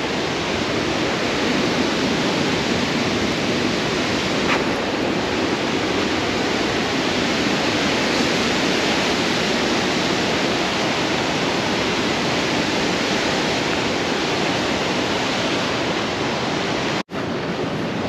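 Waterfall rushing: a steady, even wash of falling water with no let-up. It cuts out for an instant near the end.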